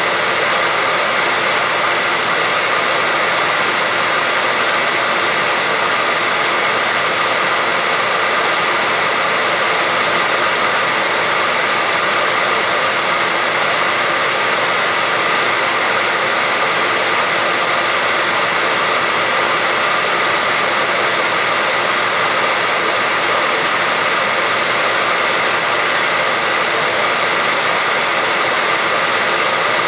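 Hair dryer running continuously: a steady, unchanging rushing noise with a faint high whine, played as soothing white noise for a baby.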